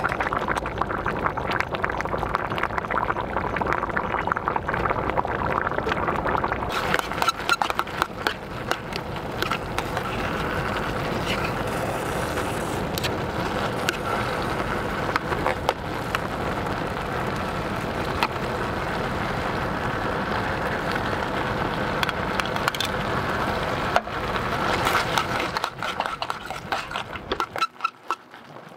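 Pasta cooking water boiling hard in an aluminium mess tin, a steady bubbling with many small pops as the starchy liquid thickens and boils down. The sound drops away sharply near the end.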